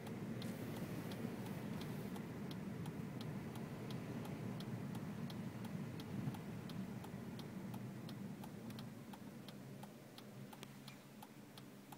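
Car turn-signal indicator ticking steadily, about two clicks a second, over the low hum of the moving car, which quietens near the end.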